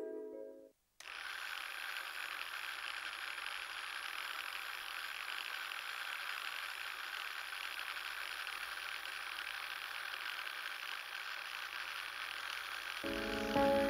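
Steady mechanical running noise with a hiss, starting about a second in; music fades out at the very start and comes in again near the end.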